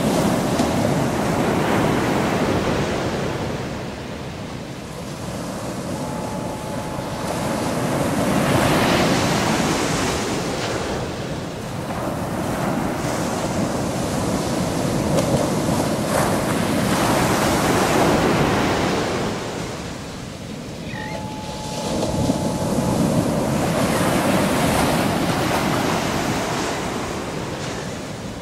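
Atlantic surf breaking on a sandy beach, a steady wash of noise that swells and fades as each wave breaks and runs up the shore, about every seven or eight seconds.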